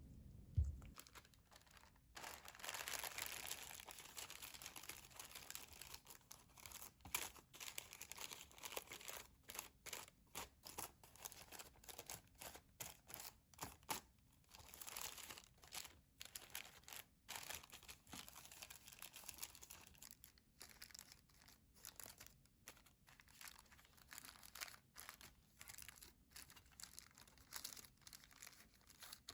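Faint, irregular crinkly rustling and scraping of hands-on food preparation, going on in short stretches with brief pauses, a little louder in the first few seconds.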